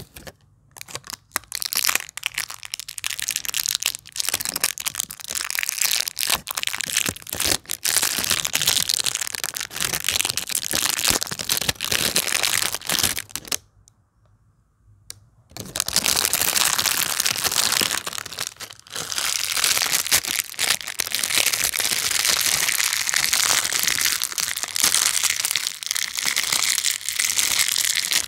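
Clear plastic shrink wrap crinkling and crackling as it is peeled off and crumpled away from a jar, with a short pause about halfway through.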